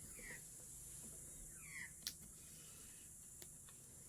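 Quiet handling of a board game box as it is being opened: a few light clicks and two short, high, falling squeaks over faint hiss.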